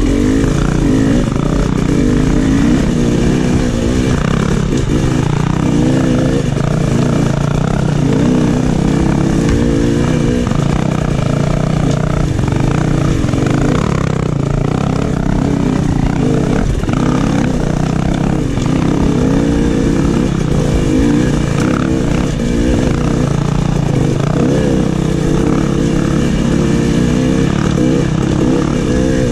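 KTM 300 XC's two-stroke single-cylinder engine revving up and down continuously as the dirt bike is ridden along a trail, with occasional knocks and clatter from the bike.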